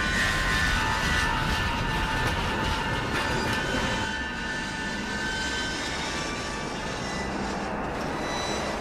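Steady road and engine noise of a moving vehicle heard from inside the cabin, easing a little about four seconds in.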